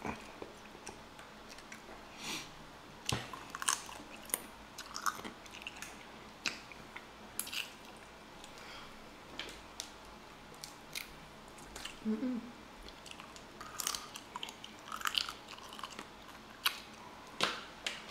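Boiled crawfish being peeled and eaten: irregular sharp cracks and snaps of shells breaking by hand, mixed with chewing.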